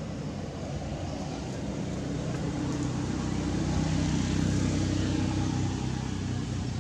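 Low engine hum of a passing motor vehicle, swelling to its loudest about four seconds in and then easing off.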